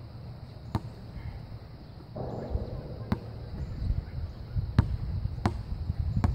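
A basketball bouncing on an outdoor hard court: about six separate sharp bounces at uneven spacing, over a steady low rumble.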